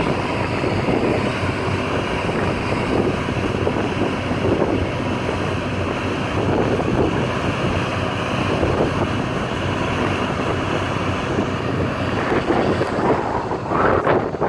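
Strong wind buffeting the microphone: a steady rushing rumble that dips briefly near the end.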